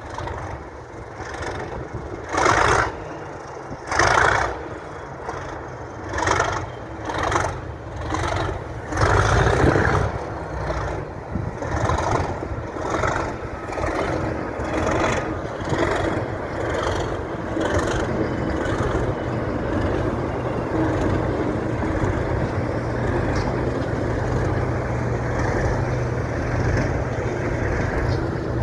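Class 37 diesel locomotive's English Electric V12 engine working hard under power. About six loud blasts come in the first ten seconds, then shorter pulses, and the sound settles into a steady, continuous engine note.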